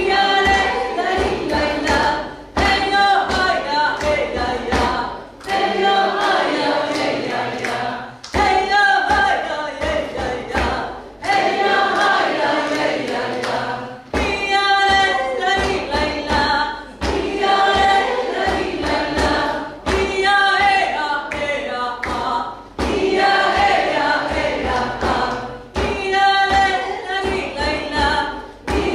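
A woman singing an Andean folk song in phrases of about three seconds with short breaths between them, keeping time with a steady beat on a caja, the Andean frame drum.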